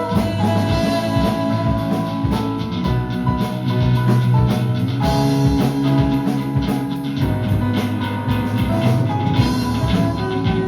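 Live rock band playing: drum kit, electric guitar, bass and piano, with held notes over a steady beat.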